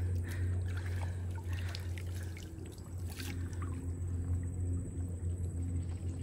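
Water trickling and splashing softly as a gill net is hauled up out of the water, over a steady low hum.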